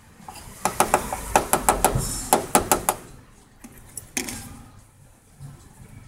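Small metallic clicks and taps from a tubular lock cylinder being worked by hand as its pins are pushed out with a thin rod: a quick run of about a dozen sharp clicks, then a few more about four seconds in.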